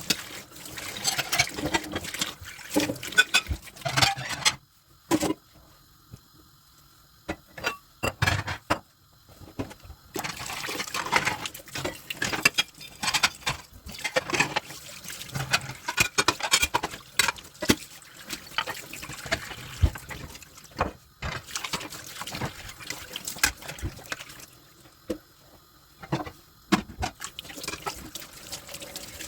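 Dishes being washed by hand at a kitchen sink: water running and splashing, with clinks and knocks of dishes being handled. The water stops twice, about four seconds in and near the end, leaving only scattered knocks, and it runs again from about ten seconds in.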